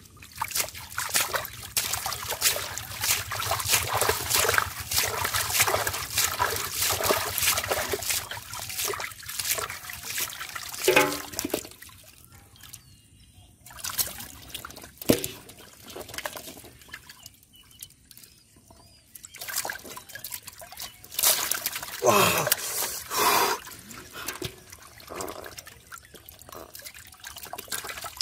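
Hands splashing and churning muddy water in a small catfish trap hole while grabbing fish, with water trickling and dripping. Busy splashing for the first ten seconds or so, a couple of short lulls, then more splashing bursts in the second half.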